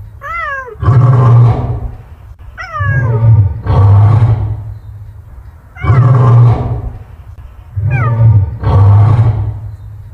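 Big cat growling and roaring in deep, loud bursts about a second long, roughly every two seconds. Several of them are preceded by a short high cry that falls in pitch.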